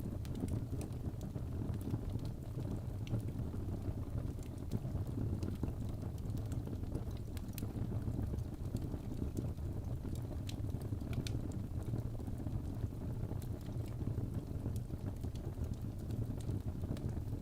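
Wood fire burning in a fireplace: a steady low rumble with scattered sharp crackles and pops throughout.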